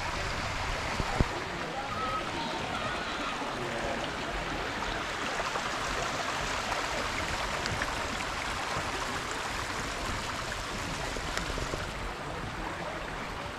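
Water of a small creek running steadily, an even rushing splash, with one brief knock about a second in.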